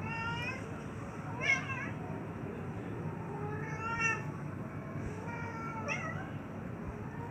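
Domestic cat yowling during mating, four drawn-out meowing calls a second or more apart.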